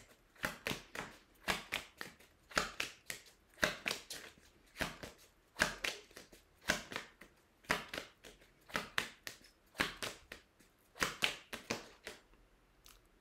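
A deck of oracle cards being shuffled by hand: short, soft snaps of cards slapping together, mostly in pairs about once a second, stopping about a second before the end.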